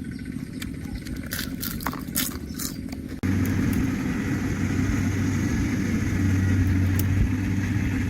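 A steady low engine hum with scattered clicks and crackles, becoming louder and fuller after an abrupt cut about three seconds in.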